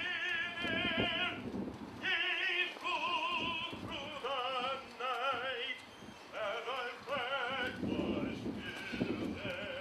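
Operatic soprano voice singing long, high held notes with wide vibrato, phrase after phrase.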